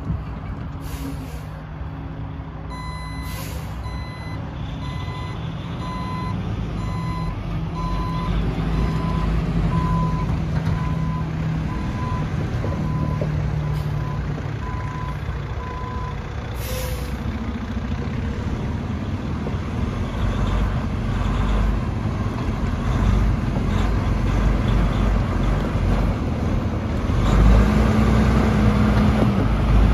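Freightliner SD122 quad-axle dump truck's diesel engine running as the truck maneuvers, its reverse alarm beeping about once a second from a few seconds in until about halfway through, then stopping. Brief hisses of air about a second in and again just after the beeping stops, and the engine grows louder near the end.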